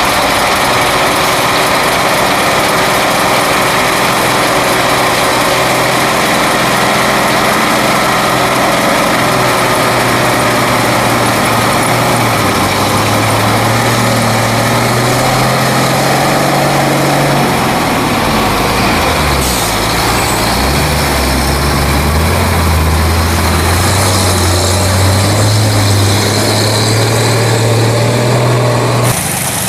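Diesel engine of a truck heavily loaded with logs, pulling past close by. Its note climbs, drops back about eighteen seconds in as the driver changes gear, then builds again and holds until it cuts off suddenly near the end.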